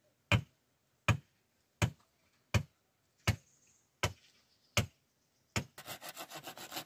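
Eight sharp blows on wood, evenly spaced about three-quarters of a second apart. About six seconds in, fast sawing strokes on wood begin.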